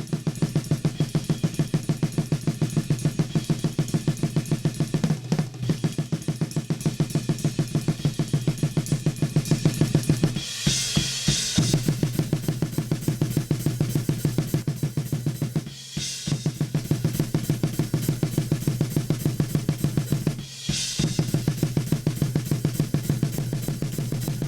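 Recorded drum kit playing through a FET (1176-style) compressor as a demo: a fast, even run of kick-drum strokes with snare, and cymbal crashes about every five seconds.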